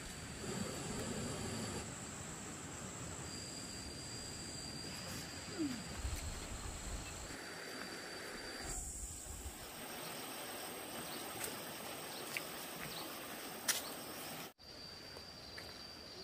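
Outdoor ambience of insects trilling steadily at a high pitch, their calls switching on and off, with scattered low rustling and a few faint clicks. Near the end the sound drops out for an instant, then the trilling resumes.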